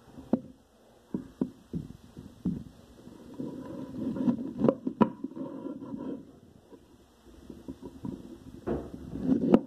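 Large kitchen knife chopping on a wooden cutting board: irregular sharp knocks of the blade striking the board, some in quick pairs, with duller rustling and scraping between the strokes.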